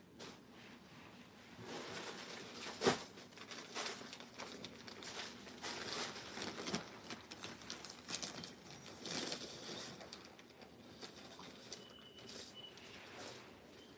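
Suit fabric and plastic packaging rustling and crinkling as they are handled and laid out on a table, in irregular bursts, with a sharp tap about three seconds in.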